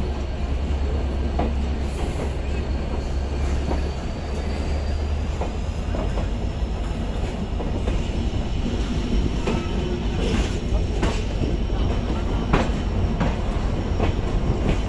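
Passenger train running on the rails: a steady low rumble with irregular sharp clicks of the wheels over rail joints.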